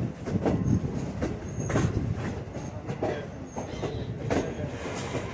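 Passenger railcar rolling along the track: a steady low rumble with irregular clacks and knocks from the wheels and running gear.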